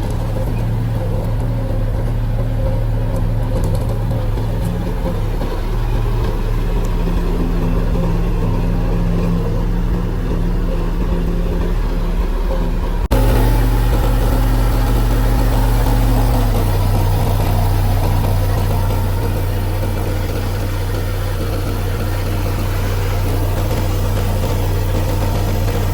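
Bobcat 753 skid steer's Kubota four-cylinder diesel engine running steadily. Halfway through the sound jumps abruptly, and a few seconds later the engine note drops to a lower speed and stays there.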